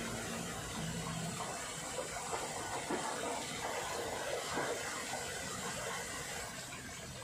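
Swimming-pool water splashing and sloshing as a swimmer moves through it, easing off a little near the end.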